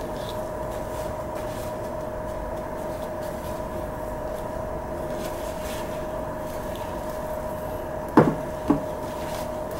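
Steady background hum with faint paper rustling, then two short knocks about half a second apart near the end as a block of thawed tuna is set down on a ceramic plate.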